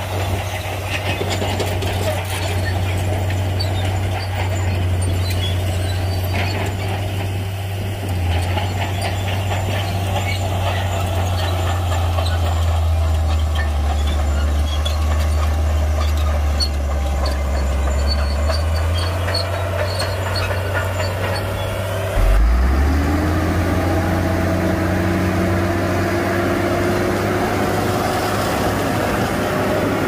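Shantui bulldozer's diesel engine running with a steady low drone. About 22 seconds in, the sound changes abruptly and the engine pitch rises, then holds steady.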